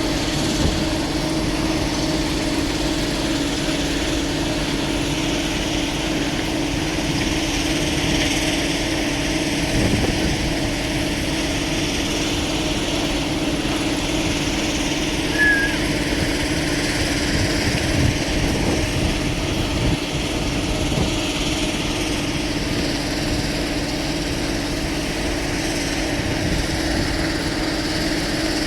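Excavator engine running steadily at an even pitch, with a few brief knocks along the way.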